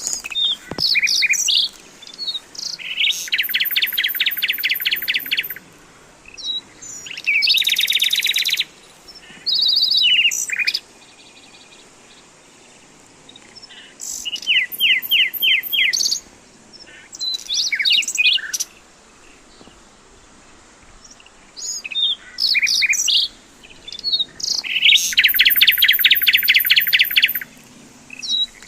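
A songbird singing in repeated phrases a few seconds long with pauses between them. Each phrase has a few quick high notes and a fast trill of rapidly repeated notes.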